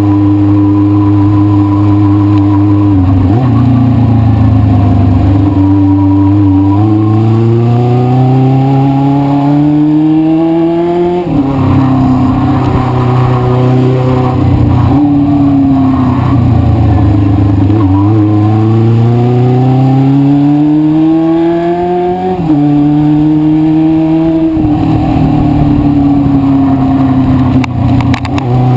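1973 Honda CB500 Four's air-cooled inline-four engine running under way, its pitch climbing as the bike accelerates and dropping sharply at each gear change, several times over.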